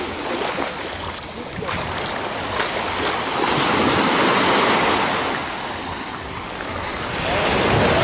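Small sea waves breaking and washing up a sandy beach, a steady rush of surf that swells louder about halfway through, eases off, then builds again near the end, with some wind on the microphone.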